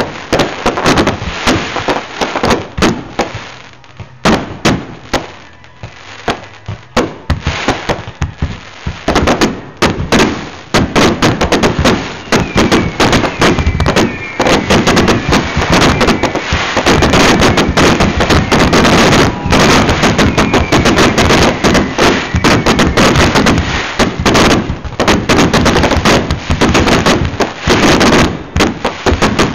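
Aerial fireworks going off in rapid succession: a dense run of bangs and crackling that thins for a few seconds near the start, then builds into a near-continuous barrage.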